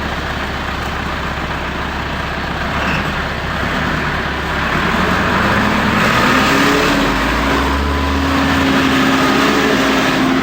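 Heavy truck engine running steadily, then revving up about halfway through, its pitch rising and holding higher.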